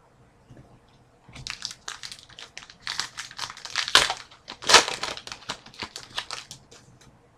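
A trading-card pack's wrapper being opened and crumpled by hand: a run of crinkling crackles, loudest in two bursts in the middle.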